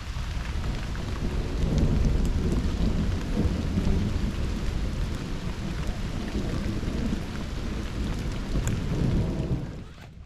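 Steady rain with low rolling thunder, the rumble swelling about two seconds in and again near the end before dropping away.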